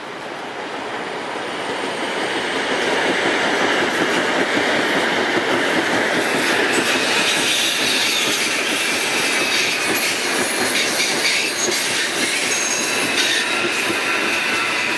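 CPTM electric commuter train running past on the tracks, its rumble building over the first few seconds and then holding loud and steady. Clicks of the wheels over the rails and thin, high wheel squeals come through in the second half.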